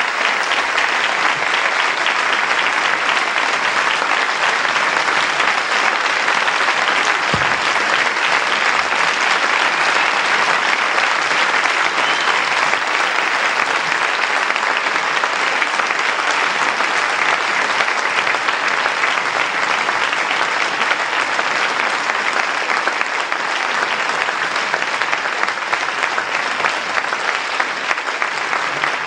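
Large audience applauding steadily and at length, a sustained ovation after a song.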